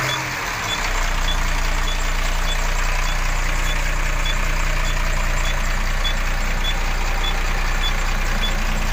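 Tata 4018 truck's diesel engine running steadily just after starting, heard from inside the cab, its note settling about a second in. A short high electronic beep repeats about one and a half times a second throughout.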